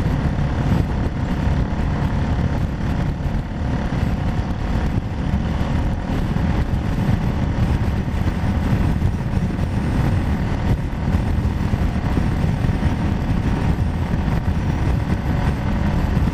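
Steady rush of wind on the camera's microphone with the drone of the rider's engine beneath it, cruising along at road speed.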